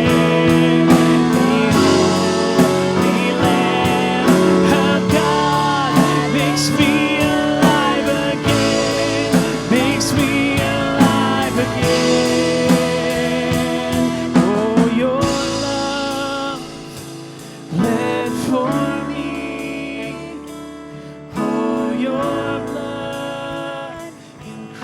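Live church worship song: voices singing over an instrumental band accompaniment. It gets quieter about two-thirds of the way through.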